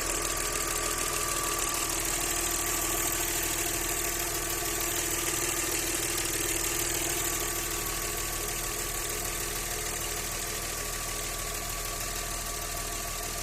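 Audi 100 C4's 2.6-litre ABC V6 engine idling with a knock, which the owner thinks may be the hydraulic lifters, spun bearing shells or a connecting rod. The engine gets slightly quieter about halfway through.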